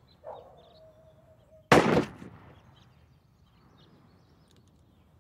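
A single gunshot about two seconds in, with a short echoing tail, fired at a target in shooting practice. A faint held tone sounds in the second before the shot.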